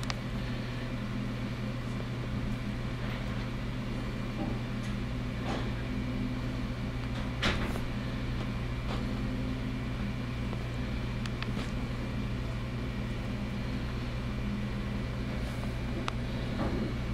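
Steady low electrical or mechanical hum of a small room, with a few faint clicks; the sharpest click comes about seven and a half seconds in.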